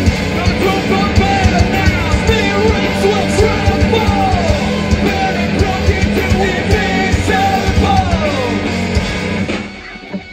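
Live post-hardcore rock band playing: electric guitars, drums and bass under a sung and shouted lead vocal. The band drops off sharply near the end.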